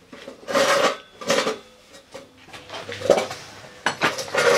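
Small loose metal engine parts clinking and rattling as they are handled on a workbench, in several separate bursts with a light metallic ring; the loudest come about half a second in and near the end.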